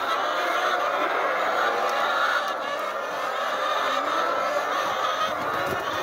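A large flock of brown hens clucking and chattering all at once, a dense, steady chorus.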